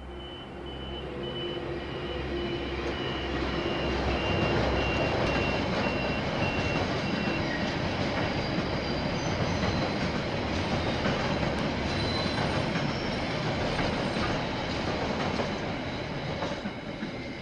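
KiwiRail diesel-hauled train passing on the line: the rumble of the locomotive and wheels on rails swells over the first few seconds, holds loud for about ten seconds as the wagons roll by with a faint squeal from the wheels, then fades near the end.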